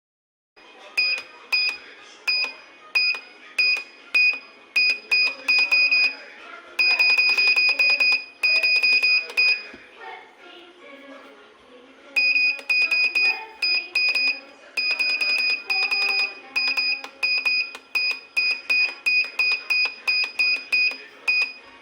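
Arduino-driven buzzer beeping at one high pitch as push buttons are pressed: a string of short beeps, some held for nearly a second, pausing for about two seconds midway and coming about three a second near the end.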